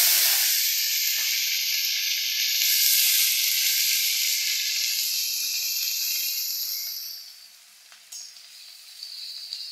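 Ground onion paste hitting hot oil and cumin in a steel karahi: a loud sizzle and hiss as it is stirred, dying down sharply about seven and a half seconds in to a faint sizzle.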